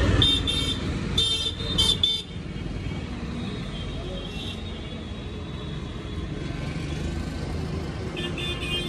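Street traffic running steadily, with vehicle horns beeping in short high blasts: three quick ones in the first two seconds and another cluster near the end.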